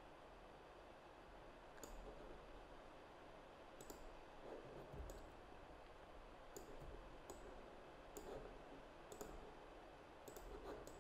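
Faint clicks of a computer mouse button, about a dozen at irregular intervals, some in quick pairs, over a low steady hiss.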